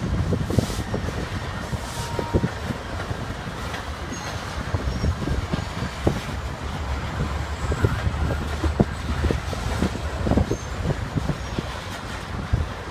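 Covered hopper cars of a freight train rolling past: a steady low rumble of steel wheels on rail, broken by irregular clanks and clicks.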